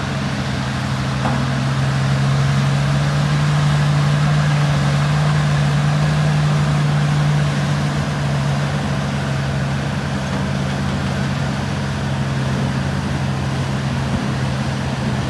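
Excavator's diesel engine running steadily with a low drone. It grows louder about two seconds in and eases back about halfway through.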